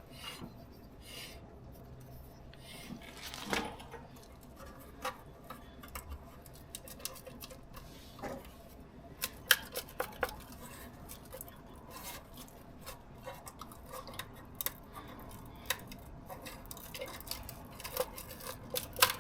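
Scattered light metallic clicks, ticks and scrapes from a rusted steel brake dust shield on a car's rear wheel being pushed and handled by hand. The shield is corroded and deteriorating at the bottom. A few sharper clicks stand out about halfway through and near the end.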